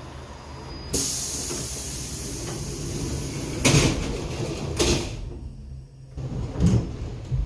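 Suburban electric train's sliding doors closing: a sudden hiss starts about a second in, then two loud bangs as the door leaves slam shut, over the train's steady low hum.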